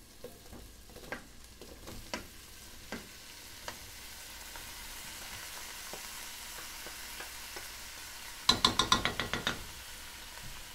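Drained boiled potato chunks tumbling into a pot of hot melted butter, with a steady sizzle and scattered small knocks. Near the end comes a quick run of about ten louder knocks as the colander is emptied into the pot.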